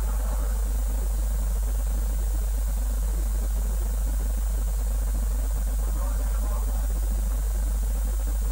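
A steady, unchanging low hum with an even hiss over it.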